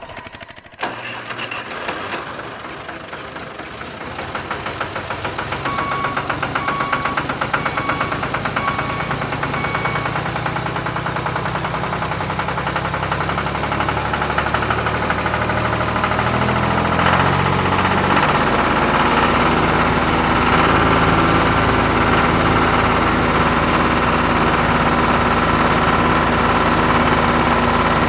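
Engine sound effect: a vehicle engine running with a knocking beat, building up over the first few seconds and settling into a steadier, louder run about two-thirds of the way through. A run of about five short beeps comes a few seconds in.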